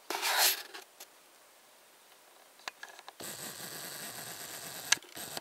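A short burst of rustling and handling noise on the camera microphone, followed by a few faint sharp clicks and ticks.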